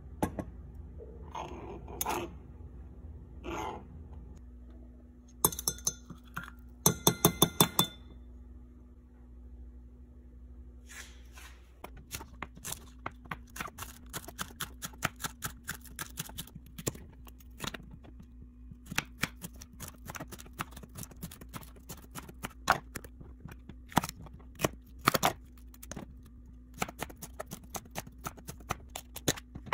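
A metal measuring spoon scraping paste into a glass measuring cup, then a quick run of sharp clinks as it taps against the glass. From about twelve seconds in, a knife chopping green onions and bell pepper on a cutting board in rapid, uneven strokes.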